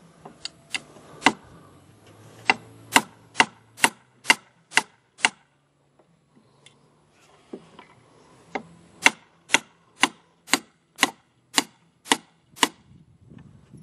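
Hammer driving nails into a wooden pole frame, one nail at each end of a crosspiece. Sharp, even blows about two a second: about a dozen strikes, a pause of about three seconds, then about ten more.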